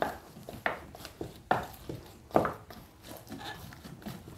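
Wooden spoon mashing boiled potatoes in a stainless steel bowl: a series of irregular soft knocks and squishes, roughly one every half second to a second.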